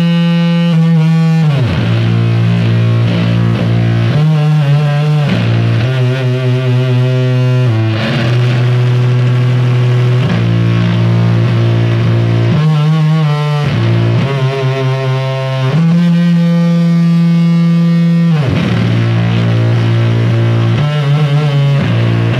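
Heavily distorted electric guitar playing loud doom metal, holding long droning notes that change every few seconds, sliding down in pitch about a second and a half in and again near the end.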